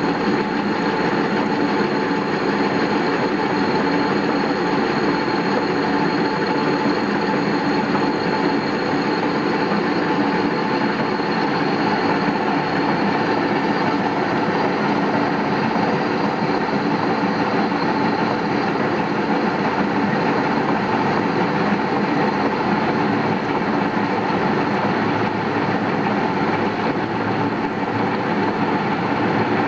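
Metal lathe running under power feed, its cutter facing the end of a 130 mm hard-steel blank. A steady running sound with several held tones over an even cutting noise.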